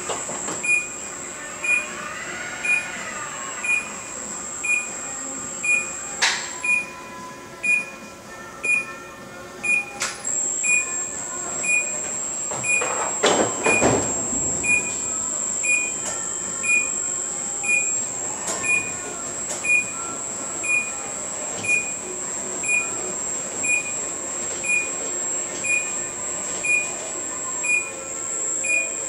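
Automated greenhouse bench-transport system running: a warning beeper sounds about once a second over the machinery's steady high whine, with a louder rumbling clunk about halfway through as a bench moves.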